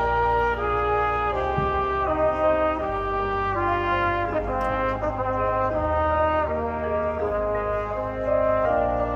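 High school marching band's brass section playing sustained chords that change every second or so over a steady low bass.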